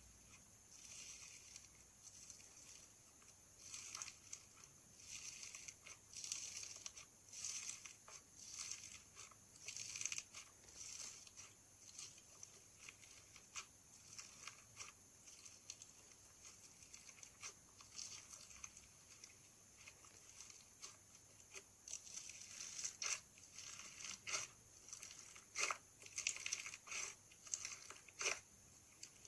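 Crunchy slime being squeezed and worked, giving irregular crackles and pops that come more thickly near the end.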